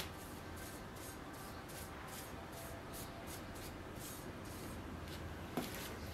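Faint, repeated rubbing strokes, about two to three a second, from hand work on a steel sword blade clamped upright in a vise, with one sharper scrape near the end.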